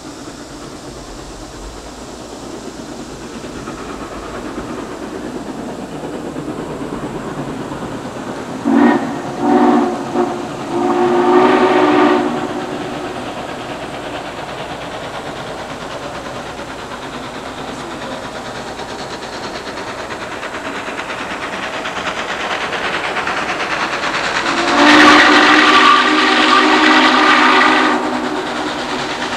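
Norfolk & Western Class J No. 611 steam locomotive's whistle blowing several tones at once: three short toots, then a longer blast, and later another long blast, with a further one starting at the very end. Underneath, a steady rushing sound of the approaching locomotive slowly grows louder.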